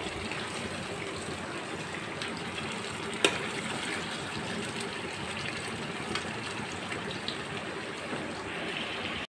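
Marinated chicken pieces sizzling steadily in hot oil and masala in a frying pan while being stirred and browned with a metal spatula, with an occasional clack of the spatula against the pan, the sharpest about three seconds in.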